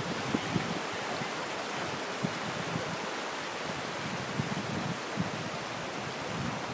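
Steady rushing of a small rocky mountain stream near a waterfall, with irregular low bumps of wind on the microphone.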